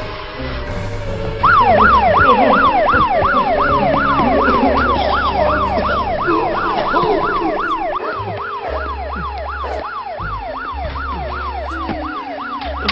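Siren in a fast yelp pattern, its pitch rising and falling about three times a second, starting sharply about a second and a half in, over low droning music.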